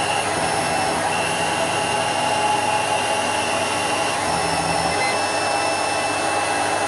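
Factory machinery running with a steady mechanical noise and faint whining tones that come and go, cutting off abruptly at the end.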